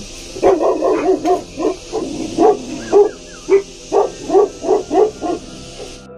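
Bhotia dog (Himalayan sheepdog) barking over and over, about three to four barks a second, stopping about five and a half seconds in.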